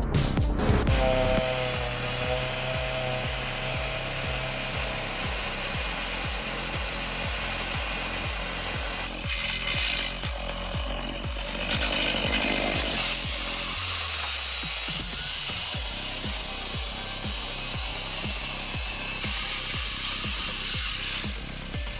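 Chainsaw cutting through wood, running steadily under load, over background music with a steady beat.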